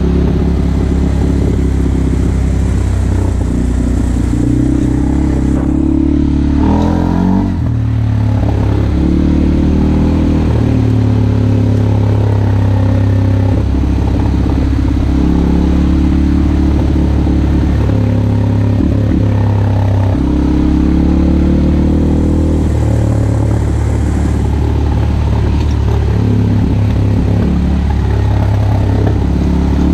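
CF Moto 450L ATV's single-cylinder engine running while the quad is ridden, its pitch rising and falling as the throttle opens and closes, with a short drop about seven seconds in.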